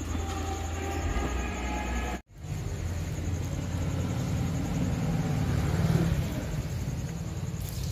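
Steady low rumble of background noise, broken by a brief dropout about two seconds in.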